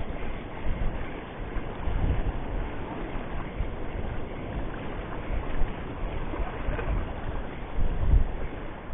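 Wind buffeting the microphone in irregular low rumbling gusts over the steady wash of sea surf on shore rocks, with stronger gusts about two seconds in and near the end.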